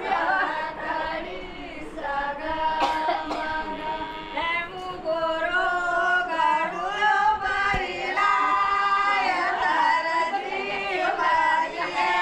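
Several women's voices singing together without instruments, in long drawn-out notes.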